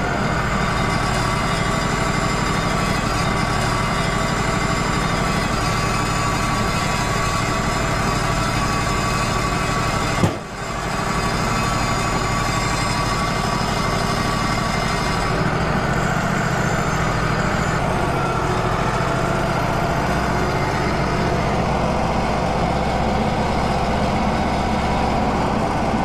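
Wood-Mizer LT35 hydraulic sawmill's engine running steadily, with a steady high whine over it, while the mill is not cutting. There is a single short knock about ten seconds in.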